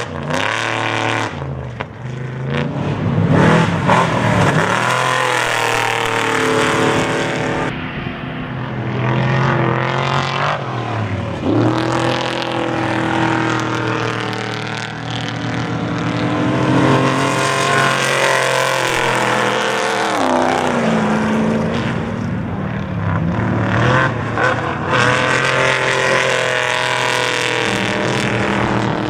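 Off-road race truck's engine revving hard, its pitch rising and falling again and again as it accelerates and backs off.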